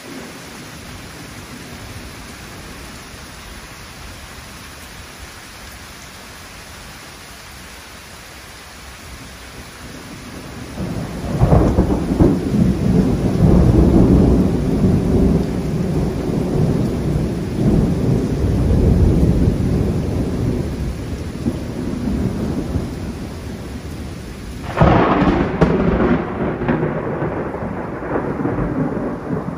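Steady rain falling, then about ten seconds in a long, loud rolling rumble of thunder builds and runs on. Near the end a sudden, sharper thunderclap breaks in and rumbles on over the rain.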